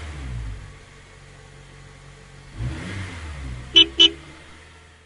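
Cartoon bus sound effect: an engine running and revving up and down, then two quick horn beeps close together about four seconds in, the loudest part, before it fades away.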